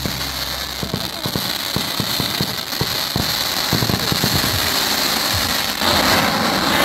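Fireworks going off: a dense run of crackles and pops over a steady hiss, growing louder near the end.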